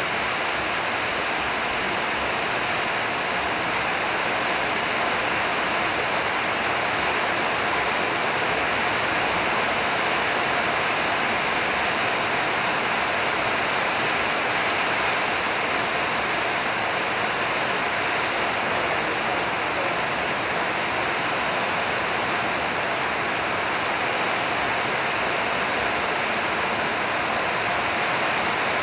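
A loud, steady rushing hiss that does not change, with no distinct strikes or tones in it.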